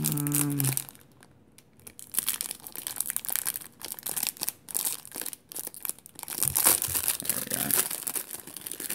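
Clear plastic bag crinkling and rustling as it is pulled open off a handheld two-way radio. After a quiet second near the start come uneven bursts of crinkling, loudest near the end.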